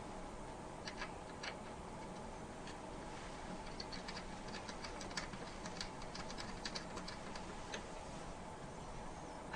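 Light, irregular clicks and taps of small metal parts being handled: the CPU cooler's mounting standoffs being screwed into place on the backplate screws.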